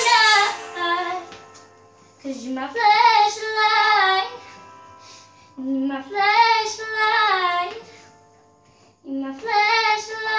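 A girl singing solo and unaccompanied: the end of one phrase, then three more long, slow phrases with short pauses between them.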